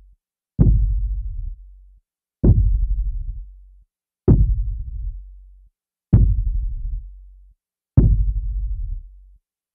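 Thriller film score of deep electronic bass hits repeating about every two seconds, each starting sharply and fading away like a slow heartbeat pulse.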